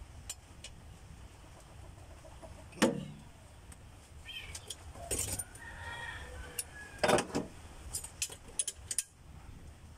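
Metal tools and engine parts clinking and knocking as they are handled on an engine's cylinder head. The loudest knocks come about 3 s and 7 s in, with a quick run of light ticks near the end.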